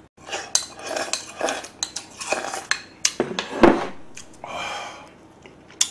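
Wooden spoon scraping and knocking against a nearly empty stoneware bowl, a quick run of clicks and scrapes, with the bowl shifted on a wooden table.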